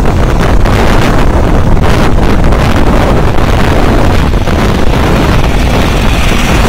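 Strong wind buffeting the microphone from a moving vehicle, over steady road and engine noise.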